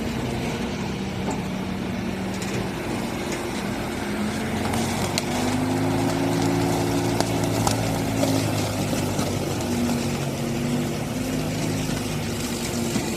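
Excavator engine running under load while driving its hydraulic flail mower attachment through vegetation; the engine note shifts in pitch a few times, with scattered sharp ticks.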